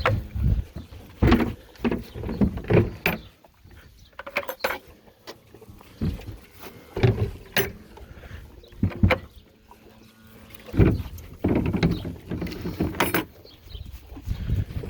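Irregular knocks, clunks and scrapes of buckets being handled and set down, in uneven bursts with short pauses between.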